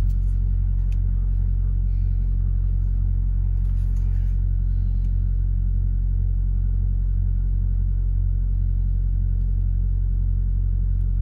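Semi truck's diesel engine idling steadily, heard from inside the parked cab.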